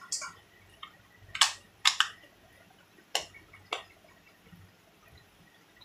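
About six sharp, separate plastic clicks and taps from handling an M19 wireless earbud charging case, the earbuds and case being fitted together, with quiet between them.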